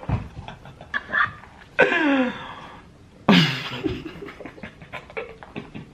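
A person's voice: two drawn-out vocal outbursts, each falling in pitch, about two and three and a half seconds in, with short clicks and scraps of noise between them.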